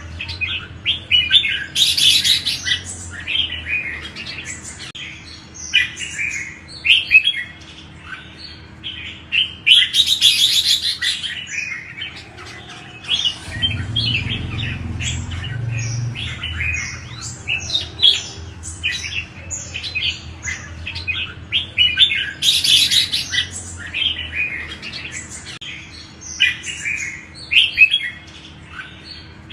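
Red-whiskered bulbul song: a fast, continuous run of short chirping notes, with louder bursts of song about 2, 10 and 22 seconds in.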